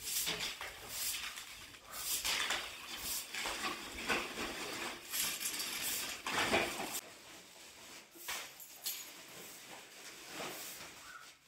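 Long straw broom sweeping a tiled stone floor: repeated swishes, about one a second, that stop about seven seconds in, followed by softer rustling.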